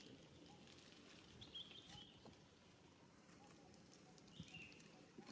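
Near silence with a few faint, short high animal squeaks, once about a second and a half in and again past four seconds in, and a few soft taps.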